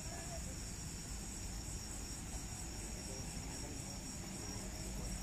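Crickets chirring steadily, a constant high-pitched trill, over a low rumble.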